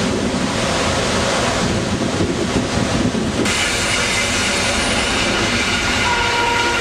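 Flåm Railway train running along the track: a steady loud rumble of the carriages and wheels on the rails. The sound changes abruptly about halfway through, and a few thin whining tones appear in the second half.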